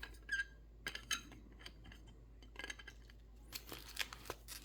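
Faint, scattered clicks and light scrapes of hockey trading cards being handled, pulled out and slid against one another. The handling gets busier near the end.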